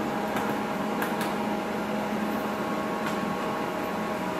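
Steady electrical hum and fan whir from a portable endoscopy unit with its LED light source switched on, with a few faint clicks from its panel buttons.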